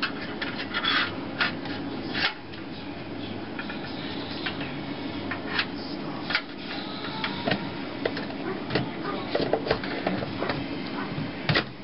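Handling noise of a USB card reader on snap-in plastic drive rails being slid into a computer case's toolless drive bay: scraping with scattered sharp plastic and metal clicks and knocks.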